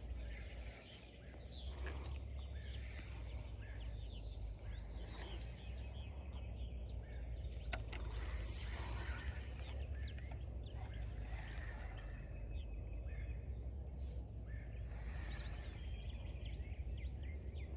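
Birds chirping and calling on and off over a steady low rumble, with one sharp click about eight seconds in.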